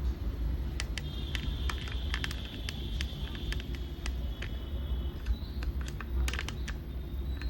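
Scattered light clicks of handling or button presses over a steady low hum, with a faint high-pitched whine for a few seconds from about one second in.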